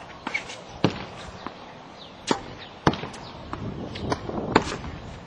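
Tennis ball being struck with a racket and bouncing on a hard court: a string of sharp pops, irregularly spaced from about half a second to a second and a half apart, the loudest near the middle and just before the end.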